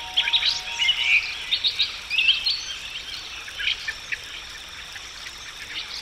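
Tropical rainforest wildlife chorus: many short, high chirps and calls, busiest in the first half, over a steady high hiss of insects. A fading piano note dies away in the first second.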